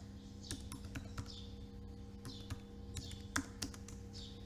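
Computer keyboard being typed on, keys clicking in short irregular runs, over a steady low hum.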